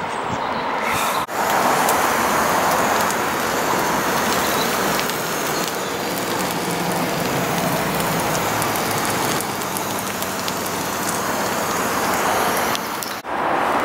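A rice dish with beans and sausage sizzling in a hot metal tray: a steady hiss with small ticks and pops. It breaks off briefly about a second in and again just before the end.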